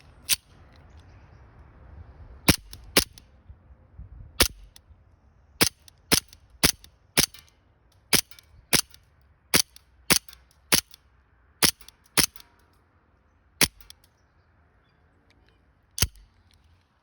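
Elite Force 1911 Tac CO2 blowback airsoft pistol firing a string of about seventeen single shots at an uneven pace, from half a second to a couple of seconds apart, each a sharp crack as the metal slide cycles.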